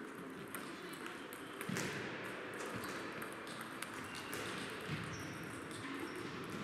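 Table tennis balls clicking irregularly off paddles and tables from several matches around a large, echoing sports hall, with a few duller thuds among them.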